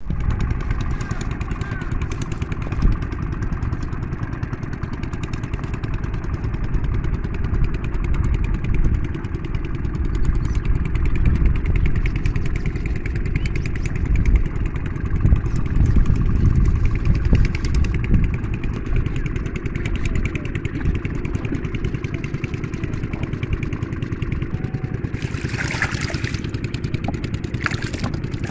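A small engine running steadily at a low, even pitch.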